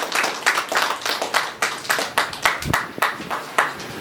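A congregation clapping in time, about five claps a second, dying away shortly before the end.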